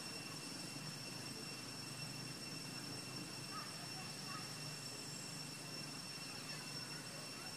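Steady forest background: a constant high-pitched insect drone over a low rumble, with a few faint bird chirps about three to four seconds in.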